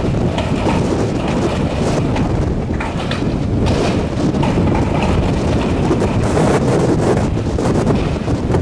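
Storm gusts buffeting the microphone in a loud, steady rumble, with scattered short clatters on top.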